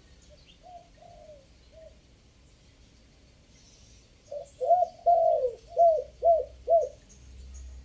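Spotted dove cooing in its three-note call: a few faint coos in the first two seconds, then a loud run of about seven coos between four and seven seconds in. Faint high chirps from a small bird come in near the end.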